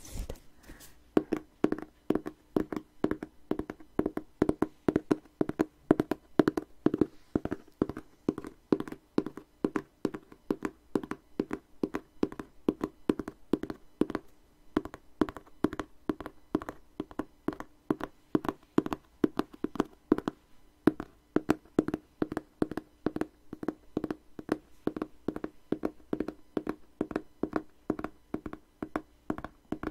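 Fingers tapping quickly on the cover of a hardcover book, a rapid run of light, uneven taps several per second that keeps going without a break.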